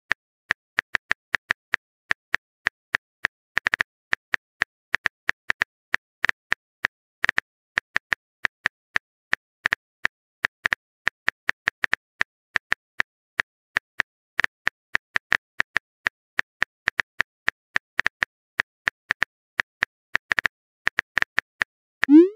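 Rapid, irregular virtual-keyboard tap clicks from a texting app as a message is typed out letter by letter. Near the end comes a quick rising whoosh as the message is sent.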